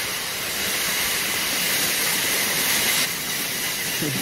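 A steady, even hiss that starts abruptly and eases slightly about three seconds in.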